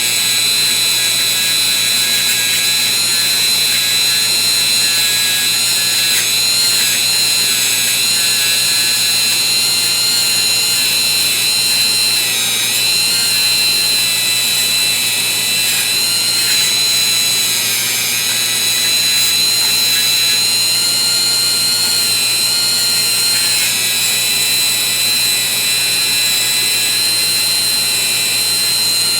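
Dremel rotary tool running with a plastic 400-grit abrasive wheel, polishing and cleaning a steel ratchet. It gives a steady high-pitched whine whose pitch dips briefly a few times as the wheel is worked against the metal.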